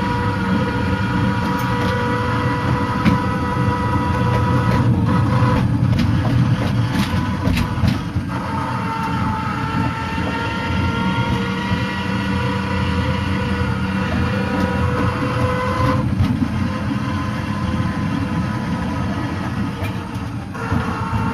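Miniature ride-on train running along its track: a rumble from the wheels on the rails under a steady motor whine. The whine cuts out and comes back a few times and shifts a little in pitch as the speed changes.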